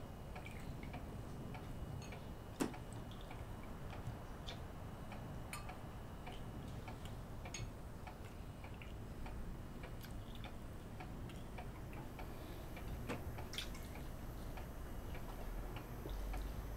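A clock ticking steadily in a quiet room, with a few sharper clicks standing out, the loudest about two and a half seconds in.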